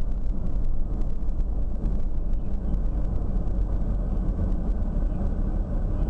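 A car's engine and road noise, a steady low rumble heard from inside the cabin while the car drives.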